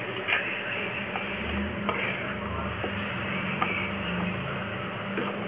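Slotted metal spatula stirring and tossing grated carrot in a metal frying pan, with a light sizzle of the carrot in hot oil and several clinks of the spatula against the pan.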